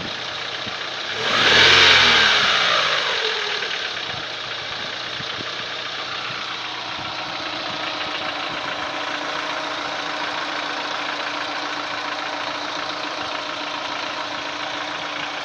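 Daewoo Lanos 1.6 four-cylinder engine idling. It is blipped once about a second in, revving up and falling back over a couple of seconds, then idles steadily with a knock the owner cannot explain.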